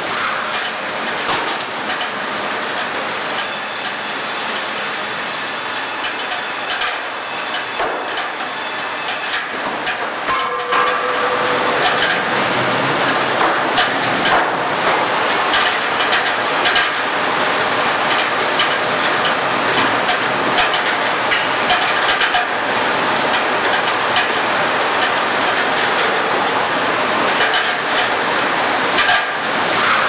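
Sawmill machinery running: steel roller and chain conveyors clattering with frequent knocks of timber and metal. A high whine sounds from about three to nine seconds in, and the din grows louder from about twelve seconds in.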